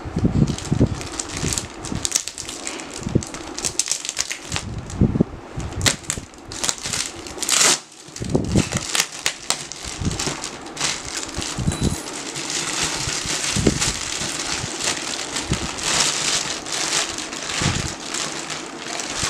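Clear plastic wrapping crinkling and rustling as it is handled and pulled off a new padded pet bed, full of irregular sharp crackles, with a few dull low thumps from handling.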